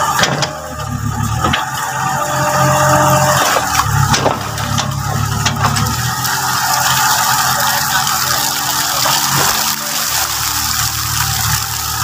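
Yanmar mini excavator's diesel engine running steadily while its hydraulic arm is worked, with a few sharp knocks in the first few seconds.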